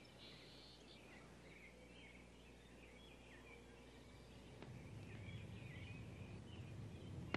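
Near silence: faint room tone with faint, scattered high chirps like distant birdsong.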